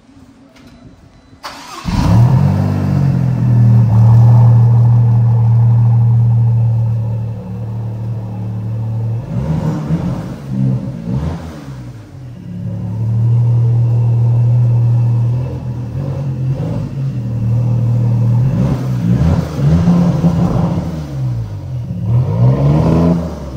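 Maserati MC20's twin-turbo Nettuno V6 starting with a sudden loud flare about two seconds in, then idling steadily. It is revved in bunches of short blips near the middle and again toward the end.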